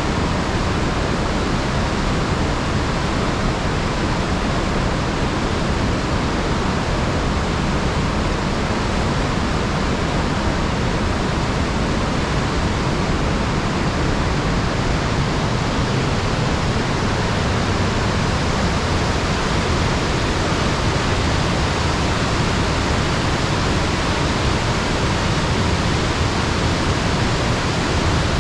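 Waterfall on the Sugar River: water pouring over the falls in a steady, unbroken rush.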